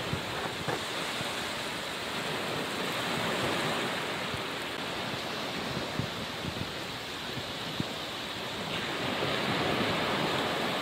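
Steady rush of surf washing up over wet sand at the water's edge, swelling gently a couple of times.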